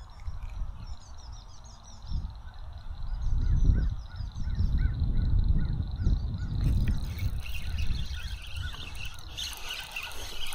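Birds calling in runs of short, evenly repeated notes, over a loud low rumble buffeting the microphone.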